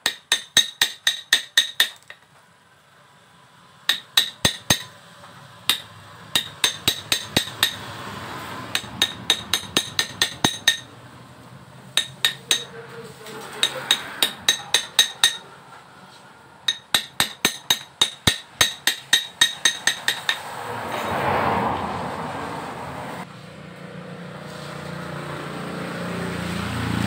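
Quick runs of sharp metal-on-metal taps, about five a second, from a spanner striking a sharpened screwdriver used as a chisel to dig the burnt winding out of a motorcycle's primary coil for rewinding. The tapping stops about 20 s in, and a rush of noise swells toward the end.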